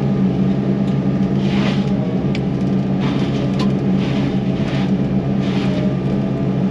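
Yanmar SV100 excavator's diesel engine running steadily under load during a diesel particulate filter regeneration. Several short grinding surges, one every second or two, come from the Fecon mulching head chewing through brush.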